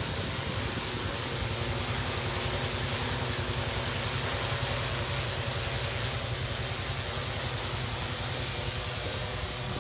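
DJI Agras MG-1S eight-rotor crop-spraying drone flying low, its propellers giving a steady multi-toned hum over a rushing hiss of air.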